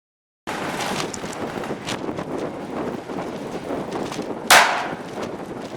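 A single shot from a North American Arms mini revolver in .17 Mach 2, about four and a half seconds in: one sharp, loud crack with a short decaying tail, heard over a steady background of wind noise.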